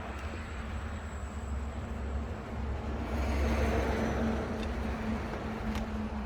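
Steady low mechanical rumble that swells a little midway, with a couple of faint clicks near the end.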